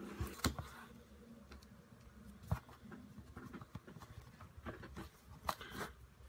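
Fingers kneading and pressing a lump of softened thermoplastic modelling material on a cutting mat: faint soft handling noises with a few sharp clicks, about half a second, two and a half and five and a half seconds in.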